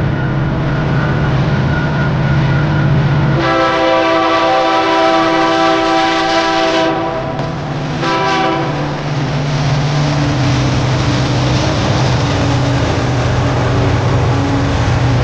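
Diesel freight locomotive running with a steady low engine drone. Its multi-chime horn sounds one long blast of about three and a half seconds starting a few seconds in, then a short blast.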